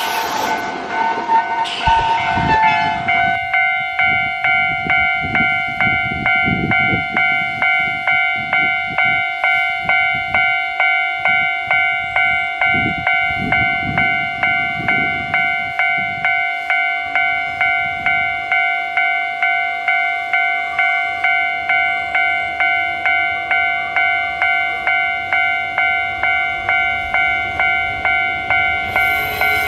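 Railway level crossing warning bell ringing steadily at about two strikes a second, starting about three seconds in. Under it, at first, is the rumble of a passing train.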